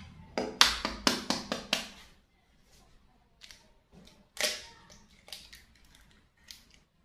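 A plastic Indomie goreng noodle packet being handled: a quick run of about six sharp crinkling snaps in the first two seconds, one more strong snap about four and a half seconds in, then a few fainter ones.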